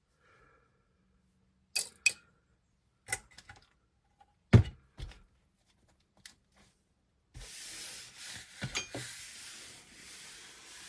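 Small RC car parts being handled on a work surface: scattered sharp clicks and taps, with one heavier knock about halfway through, then from about two-thirds of the way in a continuous rubbing and shuffling with a few clicks.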